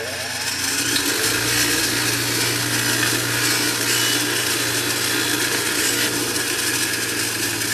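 An electric power tool spinning up over about the first second, then running steadily while taking rust off metal.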